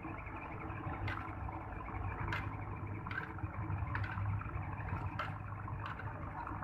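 Steady low engine hum with a few short, sharp clicks over it.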